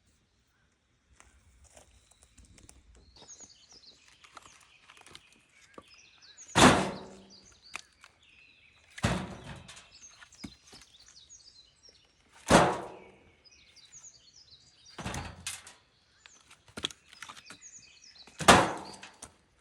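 Pieces of firewood dropped onto a woodpile: five heavy wooden thuds, roughly every three seconds. Small birds chirp between them.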